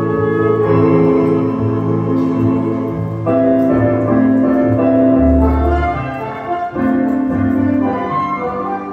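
Tango music from an orchestra, with piano and held melody notes, and a deep bass note about halfway through.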